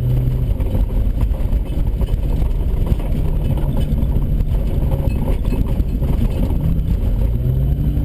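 Holden VN Commodore engine running hard under load. It holds a steady note at the start, turns to a rough low rumble, and revs up with rising pitch over the last second or so.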